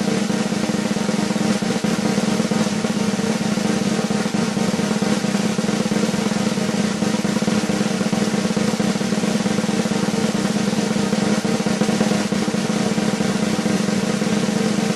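Snare drum roll held steadily, fast strokes blurring into one continuous rattle, the tension-building drum roll sound effect.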